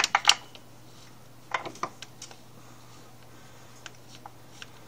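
A few small metallic clinks and taps as the oil drain plug and its sealing washer are handled and threaded back in by hand. The loudest come right at the start and about a second and a half in, with fainter ticks near the end.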